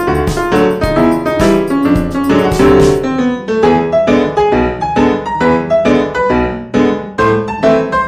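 Background piano music: a brisk melody of evenly struck notes.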